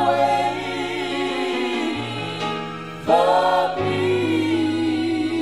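Gospel music: sung vocal phrases over sustained low accompaniment notes, with a new phrase entering about three seconds in.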